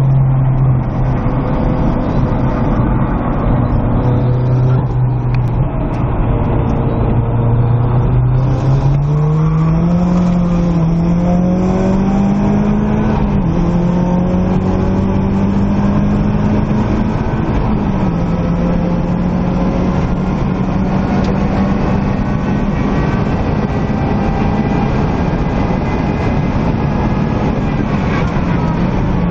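In-cabin sound of a Nissan Silvia S15 time-attack car's turbocharged engine under hard acceleration. The engine note holds steady through a corner, then climbs in pitch with two quick upshifts partway through, and runs high at speed over road and wind noise. Right at the end the pitch falls as the car starts to brake.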